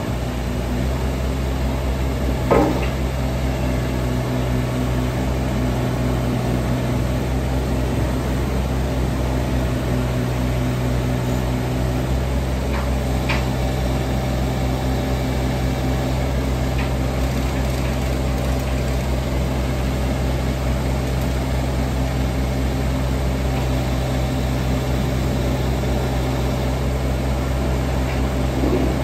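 JCB 16C-1 mini excavator's diesel engine running steadily while the boom and bucket are worked hydraulically. There is one sharp clunk about two and a half seconds in, and a few faint clicks later.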